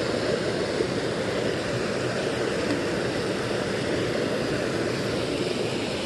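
Steady rush of creek water pouring over a small waterfall into a pool.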